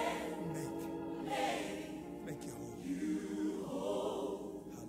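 Choir singing a gospel worship song, with held sung notes.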